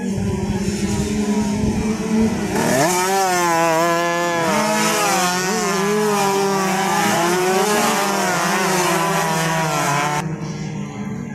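Two-stroke underbone race motorcycles revving hard as they pass through a corner, several engine notes rising and falling together with the throttle. A low steady engine hum lies under them. The loud passing starts about a quarter of the way in and breaks off abruptly near the end.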